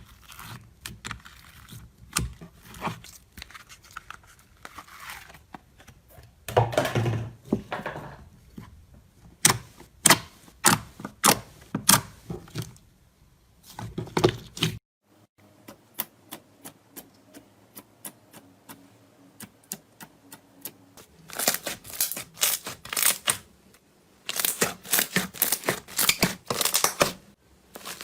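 Slime squeezed, poked and stretched by hand, making sharp sticky clicks, pops and crackly crunching in several runs with short pauses between them.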